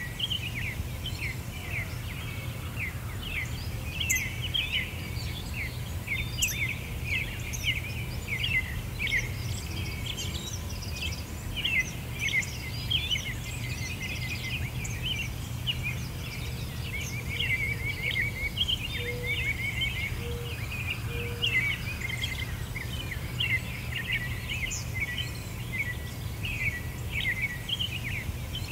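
Many small birds chirping and twittering rapidly and without a break, over a steady low rumble.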